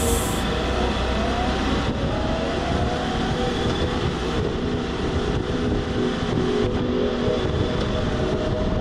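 Honda VFR1200F DCT's V4 engine running under way in traffic, heard from a helmet-mounted camera with road noise around it; its pitch rises over the first couple of seconds.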